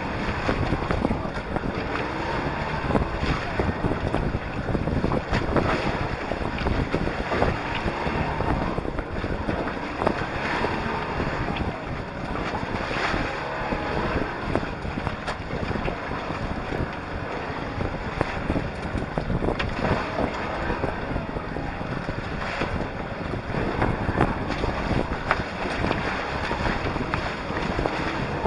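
Wind buffeting the microphone over water splashing against the hulls of a small trimaran under sail, in an irregular, continuous wash.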